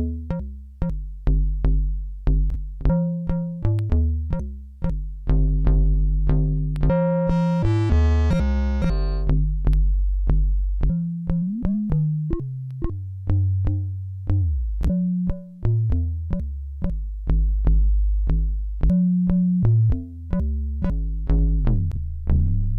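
Electronic music from a Mutable Instruments Elements clone, a modal-synthesis synthesizer module: struck notes that ring and decay over a low bass, about two strikes a second. A bright, many-toned ringing chord sounds about seven seconds in, and falling pitch glides come near the middle and again near the end.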